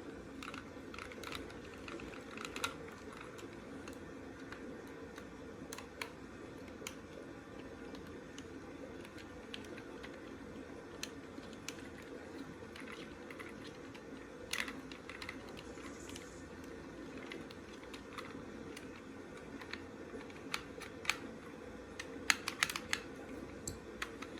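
Scattered light clicks and taps of hard plastic parts of a Buzz Lightyear action figure being handled, with a quick run of clicks near the end, over a steady low hum.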